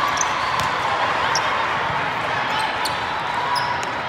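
Steady din of a large indoor sports hall: a murmur of many voices, with short high sneaker squeaks on the court and the slaps of a volleyball being hit during a rally.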